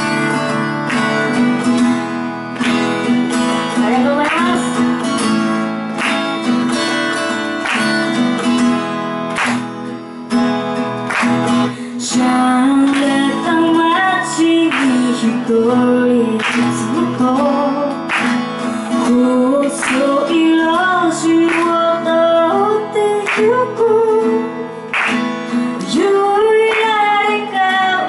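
A woman singing to her own strummed acoustic guitar in a live solo performance of an original song, voice and guitar both picked up by stage microphones.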